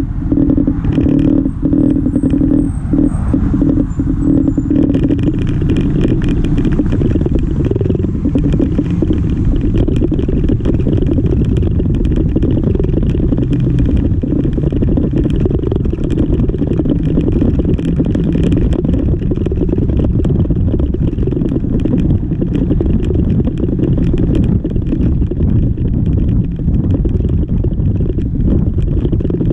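Yamaha XMAX 300 scooter's single-cylinder engine with a steady note for the first few seconds, then pulling away and riding. Once it is under way, wind rushing and buffeting over the camera microphone fills the sound.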